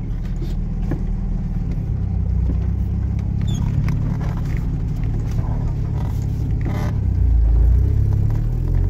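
Motor vehicle on the move: a steady low rumble of engine and road noise that swells briefly near the end.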